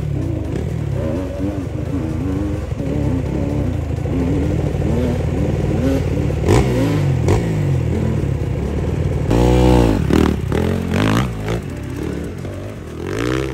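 Dirt bike engines revving hard and unevenly under load as riders climb a steep dirt hill. The loudest burst of revving, rising and falling, comes about nine seconds in.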